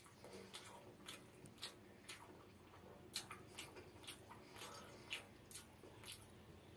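Close-miked eating sounds: faint, irregular wet clicks and smacks from chewing a mouthful of hilsa in mustard sauce with rice, with fingers working the sauced rice and fish.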